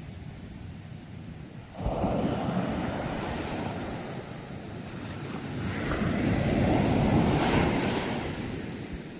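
Ocean waves breaking: one crashes suddenly about two seconds in and washes out, then a second, louder one builds, breaks with a hiss of foam and fades near the end.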